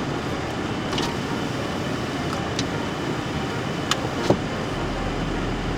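Steady running noise of a vehicle in motion, with a few light clicks.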